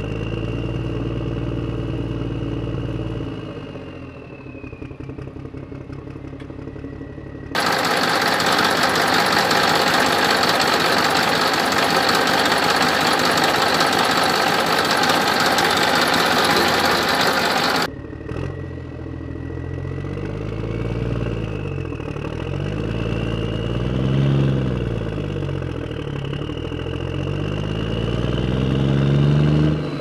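A vehicle engine sound runs steadily at first. A loud, even rushing noise then starts suddenly, lasts about ten seconds and cuts off sharply. After it the engine revs up and down in pitch several times.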